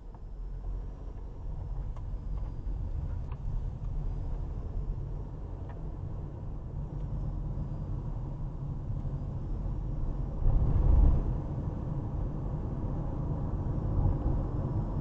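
Low, steady rumble of a car driving, heard from inside the cabin, swelling louder for about a second near the two-thirds mark.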